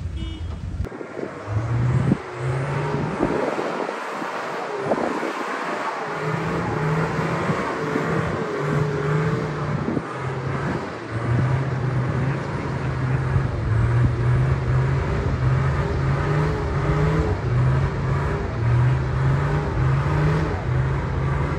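A four-wheel-drive vehicle's engine revving in repeated surges, its pitch stepping up and dropping back again and again, as it works up a steep off-road hill climb.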